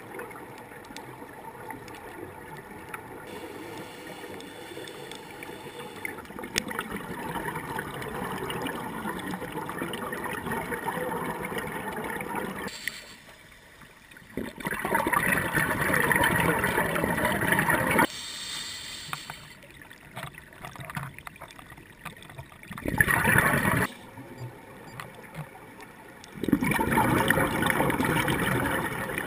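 Scuba regulator breathing heard underwater: exhaled bubbles gurgling in swells every few seconds, the loudest three in the second half, with quieter bubbling between them.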